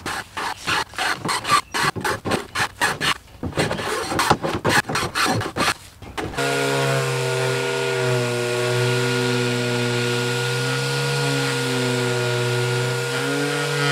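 A small hand plane shaving the edge of a laminated cedar paddle blank in quick repeated strokes. About six seconds in it gives way to a random orbital sander running steadily on the paddle blade.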